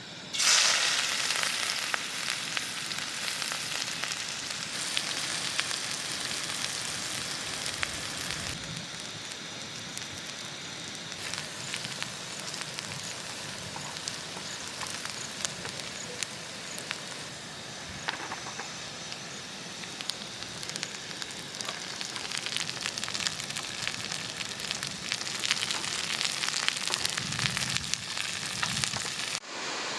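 Food frying in hot oil in a pan, a steady sizzle full of small crackles, starting sharply and loudest just as it begins.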